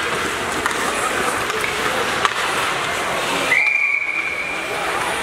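Over ice-rink noise with scattered clicks, a referee's whistle gives one long steady blast about three and a half seconds in.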